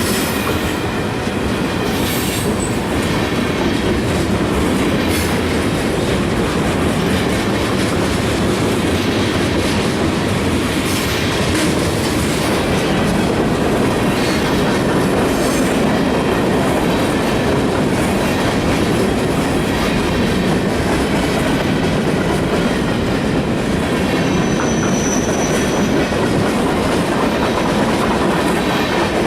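Freight cars of a CSX freight train rolling past steadily, wheels clicking over rail joints, with a brief thin high squeal near the end.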